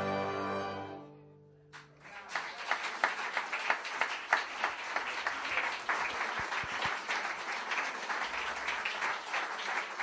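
A youth string orchestra's last chord dies away over about two seconds, then the audience breaks into applause that goes on steadily.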